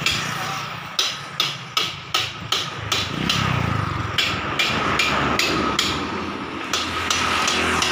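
Hammer blows on metal, sharp and repeated about two to three times a second, with a motorcycle engine running underneath from about three seconds in.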